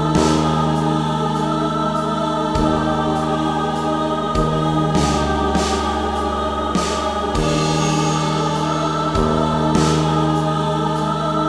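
Slow ambient music: sustained choir voices over long, deep held notes that change every couple of seconds.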